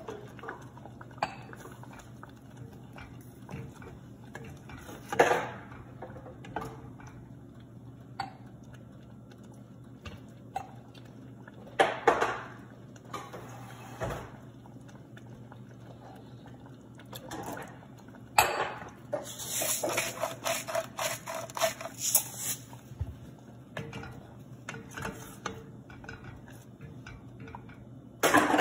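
Kitchen clatter of pots and utensils: scattered single clinks and knocks over a steady low hum, then a run of rapid clattering about two-thirds of the way through, and a wooden spoon knocking and scraping in a metal pot of thick curry gravy at the very end.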